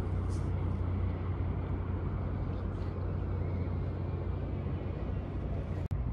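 A steady low engine hum over outdoor background noise, fading out after about four seconds. The sound drops out for an instant near the end.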